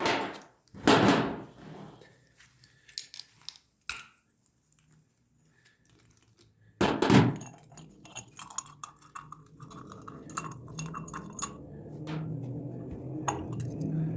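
Clunks and clinks of metal parts being handled while a small gasoline generator's carburetor is serviced, with a few sharp knocks near the start and about halfway. In the second half a low engine rumble builds and grows louder toward the end.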